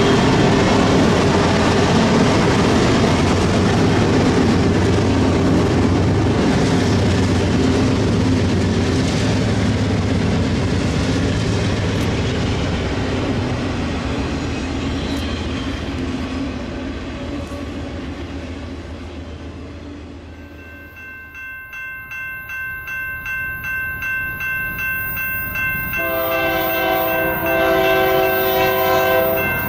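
A freight train of locomotives and auto rack cars rolling past with a steady rumble that slowly fades. Then a bell rings steadily, about two strokes a second. About 26 s in, the lead GE Dash 9 locomotive sounds its multi-note air horn in one long blast.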